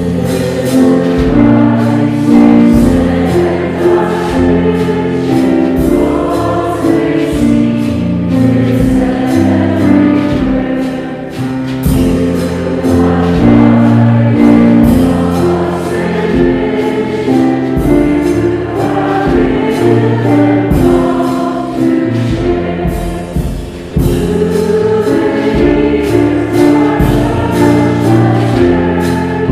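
A hymn sung by a choir with instrumental accompaniment and a steady beat, starting abruptly at the beginning.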